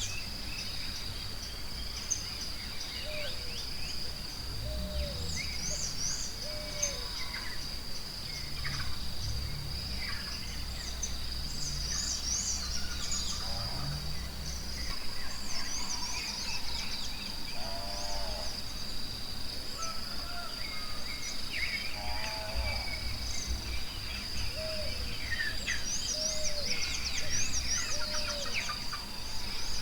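Forest ambience: a steady, high insect drone with many birds chirping and calling over it. A low rumble sits underneath for roughly the first half.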